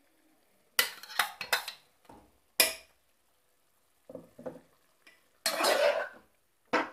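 Steel spoon scraping and clinking against a metal cooking pot while stirring green masala into thick chicken curry. It comes in several short strokes, with one longer scrape about two-thirds of the way through.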